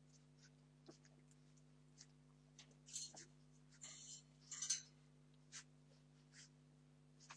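Near silence over a steady low hum, with faint scattered clicks and a few brief rustles a few seconds in, from 17-day-old Entlebucher Mountain Dog puppies moving about.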